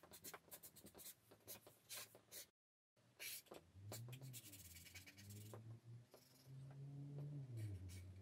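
Felt-tip marker writing on a paper easel pad: faint short strokes as letters and an arrow are drawn. The sound drops out entirely for a moment about two and a half seconds in, and a faint low hum that wavers in pitch runs under the strokes in the second half.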